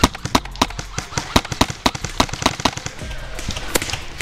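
Airsoft rifle firing quick semi-automatic shots, sharp cracks about four a second, thinning out near the end.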